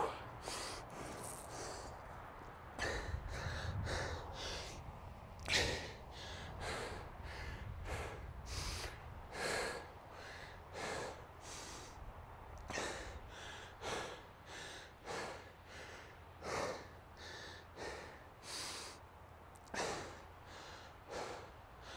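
A man breathing hard and regularly into a clip-on mic, about one heavy breath a second, catching his breath after a hill sprint.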